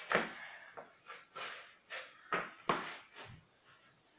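A skateboard deck without wheels knocking and scraping on a laminate floor as feet step on and off it, in a string of about six short knocks and scuffs.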